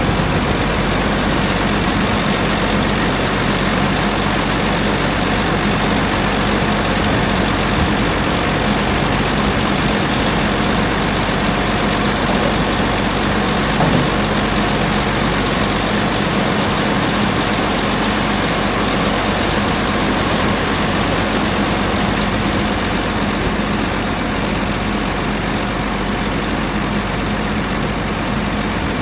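Wheel loader's six-cylinder Deutz diesel engine running steadily, with a single brief thump about halfway through.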